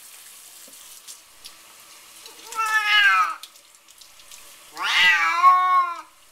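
A wet domestic cat meowing twice while being bathed: two drawn-out meows about two seconds apart, each falling in pitch, the second louder and longer.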